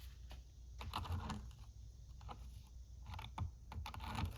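Irregular light clicks and taps from handling the chainsaw and a Dremel rotary tool; the Dremel is not running.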